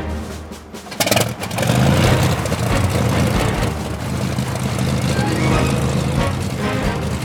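Cartoon engine sound effect: a sudden noisy burst about a second in, then the engine runs as a steady low drone.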